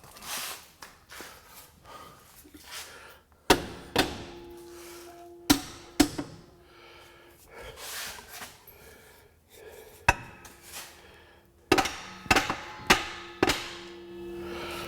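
Hammer blows on the steel U-bolts of a rear axle, knocking them into line. There are about nine sharp strikes in small groups, and several leave a short metallic ring.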